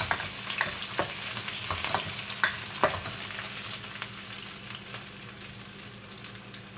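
Chopped onion and garlic sizzling in hot oil in a stainless steel wok, a steady frying hiss that eases slightly toward the end. Several sharp clicks and taps against the wok come in the first three seconds as the onion goes in.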